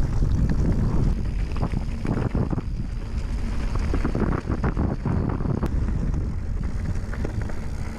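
Wind buffeting the microphone as a mountain bike rolls over a rocky gravel track, its tyres crunching on stones and the bike rattling with many small knocks.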